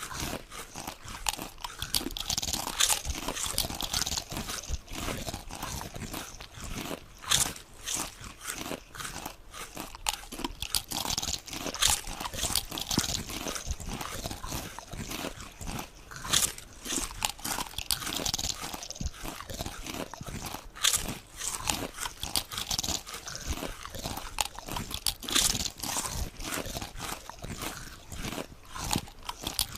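Potato chips being bitten and chewed, a dense run of crisp, irregular crunches.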